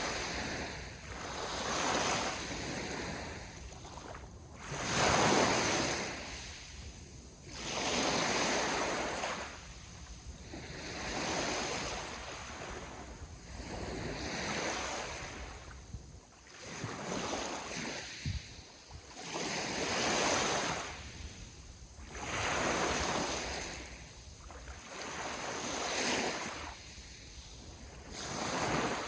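Small ocean waves breaking and washing on the shore, a rushing surge every two to three seconds that swells and fades, with some wind.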